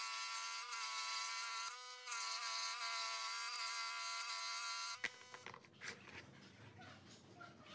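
Scroll saw running with a steady, even buzz as it cuts a small hardwood block. It stops abruptly about five seconds in, leaving faint clicks of wooden parts being handled.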